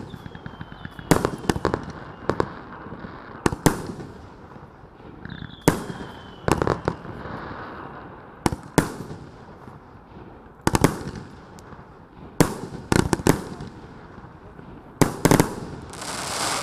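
A 38 mm, 25-shot firework cake (EP-5010B Gold Line) firing, with sharp bangs, often in quick pairs, about every two seconds. Two faint falling whistles come in the first half, and a burst of hissing comes near the end.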